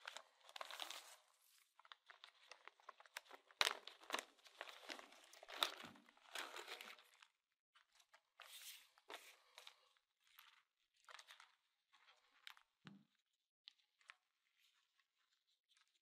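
Faint, intermittent crinkling of a clear plastic parts bag and rustling of a wiring harness as it is unpacked and laid out, with a few light taps; the sounds thin out in the second half.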